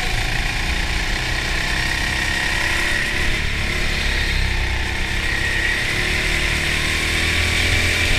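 An indoor rental go-kart driven at speed, its motor running steadily with a constant whine.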